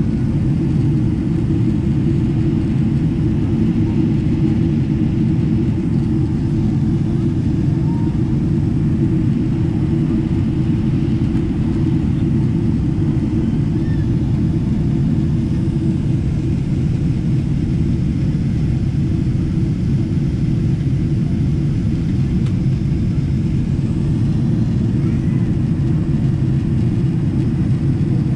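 Steady low rumble of engine and airflow noise inside the cabin of a Boeing 777-300ER airliner on its descent.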